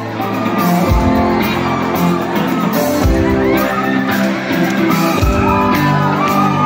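Live rock band playing loud on an amplified stage: electric guitar over drums, with a heavy low hit about every two seconds.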